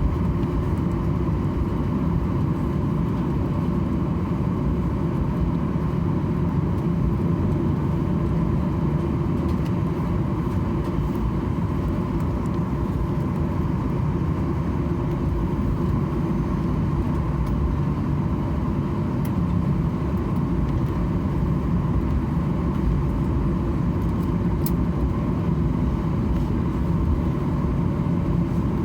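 Steady rumble of a Boeing 737-800 on the ground with its CFM56-7 engines running at low power, heard inside the cabin while the aircraft taxis.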